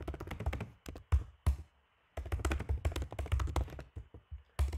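Typing on a computer keyboard: quick runs of clicking keystrokes, with a short pause a little before the middle.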